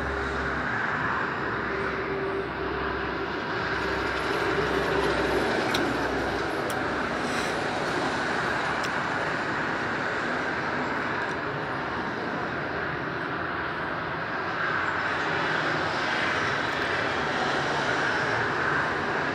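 Steady traffic noise from a motorway: tyres and engines of cars and lorries passing continuously, with a deeper drone during the first six seconds or so that then fades.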